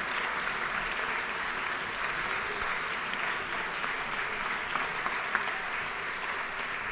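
Steady applause from a crowd of legislators in the House chamber.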